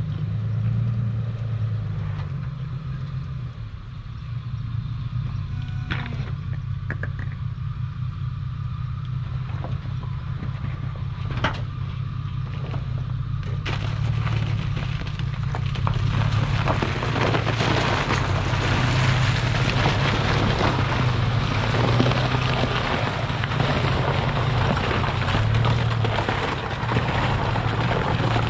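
Engine of an off-road 4x4 running low and steady as it drives slowly along a rocky trail, with a couple of sharp knocks. About halfway through, a louder rough rumble of tyres on the trail joins in.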